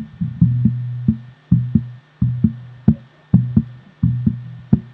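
Electric bass guitar playing one low note over and over in a syncopated rhythm, some notes held and others cut short, about two to three plucks a second.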